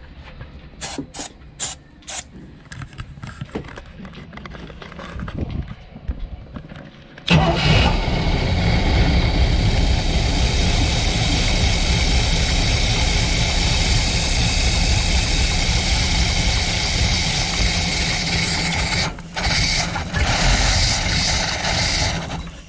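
A few short hisses of starting fluid sprayed into the carburetor, then a Chevrolet 350 V8 marine inboard with a freshly fitted Edelbrock four-barrel carburetor catches about seven seconds in on the starting fluid and runs. It falters twice near the end and stops just before the end.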